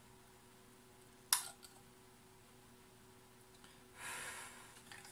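Quiet room with a faint steady hum. There is a single sharp click about a second in, and a short breath near the end.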